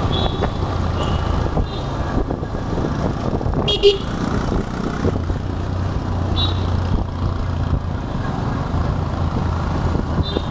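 Town road traffic heard while riding: steady engine and road noise, with several short, high-pitched horn toots, the sharpest about four seconds in.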